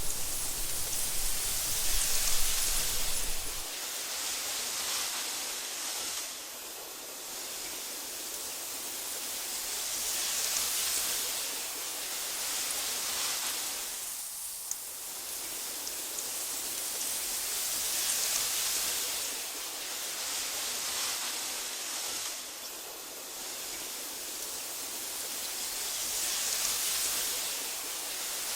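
Wind blowing through tall meadow grass: a steady hiss that swells and eases in slow gusts every several seconds. A low rumble sits under it for the first few seconds and cuts off suddenly.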